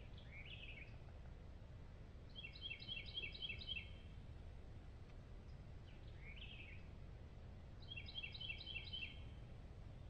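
A small bird singing twice, each song a short slurred note followed by a quick run of about eight repeated notes, over a steady low background noise.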